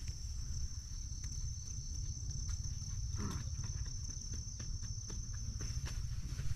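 A high, steady insect drone that fades out near the end, over a constant low rumble, with a few faint clicks.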